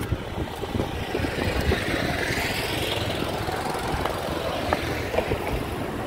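A motor engine running steadily, with a higher hiss that swells about two to three seconds in and then fades.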